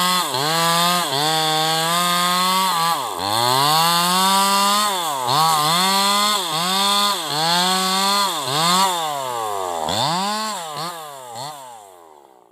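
Bosco 5880 two-stroke chainsaw running at high revs, its engine speed repeatedly dipping and picking up again. Near the end the revs drop and the sound fades away.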